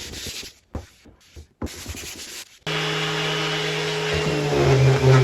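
Brief rubbing on wood and a few light knocks, then about two and a half seconds in an electric orbital sander switches on and runs with a steady hum. Near the end its pitch drops a little and it grows louder as it bears down on the veneered wood.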